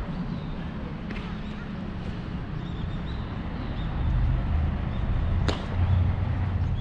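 Wind buffeting the microphone as a low rumble that swells in gusts in the second half, with faint bird chirps and one sharp click about five and a half seconds in.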